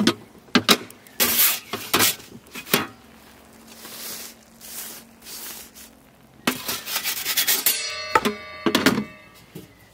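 Clanks and scrapes of the Ooni Fyra's steel door being lifted off and a pizza peel working against the oven stone during the pizza's final turn, with a ringing metal clank near the end as the door goes back on.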